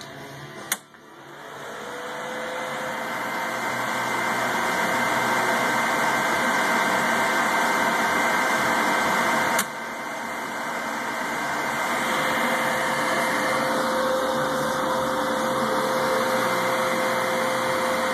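A homemade high-voltage DC power supply in an old PC case is switched on with a sharp click about a second in, and its cooling fans spin up into a steady whirr with faint steady tones. About ten seconds in a second sharp clack is heard, consistent with the contactors pulling in to drop the inrush-limiting capacitors out of circuit once the bus voltage is up.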